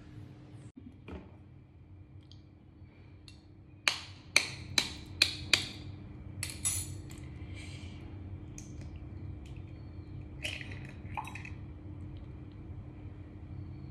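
Eggs tapped against a hard edge to crack their shells: a quick run of about five sharp taps about four seconds in, two more a second later, then softer cracking as the shells are broken open.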